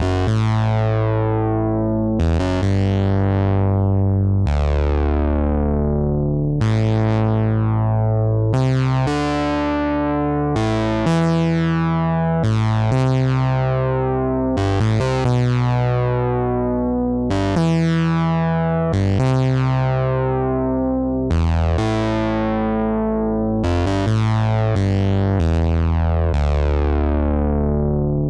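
Sampled Moog Minimoog synthesizer (IK Multimedia Syntronik Minimod library) playing a phrase of notes about every second or two, over a strong bass. Each note starts bright and darkens quickly as the filter closes.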